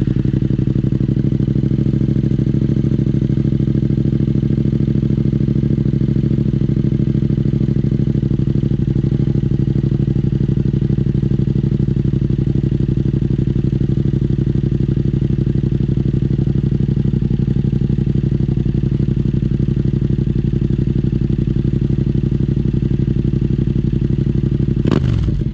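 Yamaha MT-07 (FZ-07) 689 cc parallel-twin engine idling steadily through an Akrapovič carbon exhaust.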